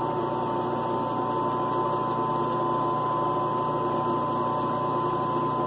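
8-inch CabKing all-diamond lapidary machine running with a steady hum from its motor and spinning diamond wheels, while its water pump feeds water to the wheels.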